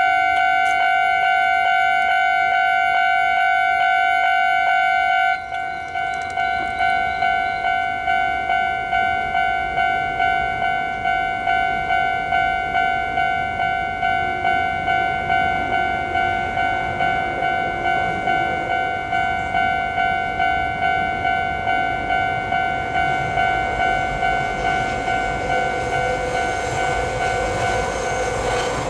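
Japanese level-crossing warning bell ringing its repeated "kan-kan" strikes in a steady rhythm. The pattern shifts briefly about five seconds in. Near the end the rumble of an approaching train rises under the bell.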